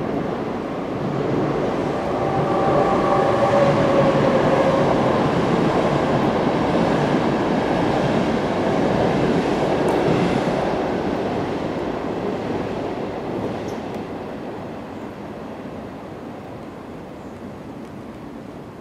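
A vehicle passing by: a broad rumbling noise that swells over the first few seconds and then fades away slowly, with a few faint steady whining tones as it builds.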